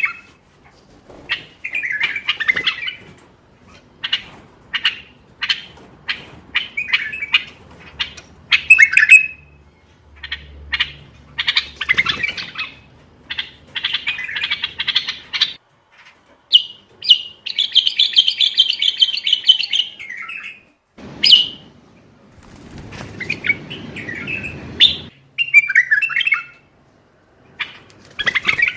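Common bulbul singing: short, repeated whistled and warbling phrases with brief pauses between them, and a longer run of fast chattering notes about two-thirds of the way through.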